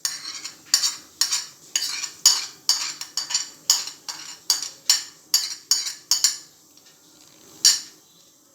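Spoon stirring and scraping in a pot of soup after vegetables go in: quick strokes about three a second, which stop about six and a half seconds in, with one last knock near the end.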